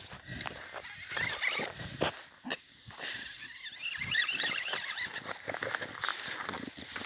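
English bulldog making noises while walking on a leash over packed snow. A sharp click comes about two and a half seconds in, and a run of high squeaks about four seconds in.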